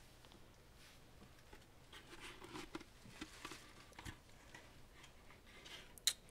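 Faint movement and handling noises: soft rustles with a few light knocks and clicks, and a sharper click just before the end.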